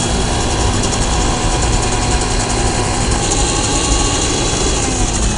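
Electric mixer-grinder (mixie) motor running at full speed, blending pomegranate seeds with curd in its plastic jar. Its pitch drops near the end as it winds down.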